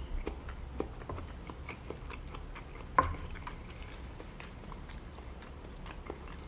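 Close-miked chewing of a mouthful of raw fish sashimi dressed with sauce and soy sauce: soft, wet, smacking mouth clicks, with one sharper click about three seconds in.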